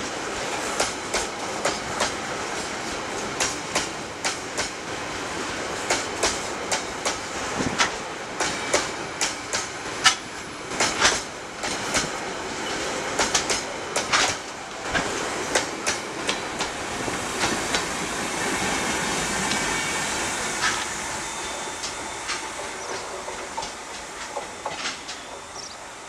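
Loaded open freight wagons of a coal train rolling past close by, wheels clattering over rail joints in a rapid string of sharp clicks. About two-thirds through, the clicking gives way to a steadier rush of wheel noise with a faint squeal, which fades as the last wagons pass.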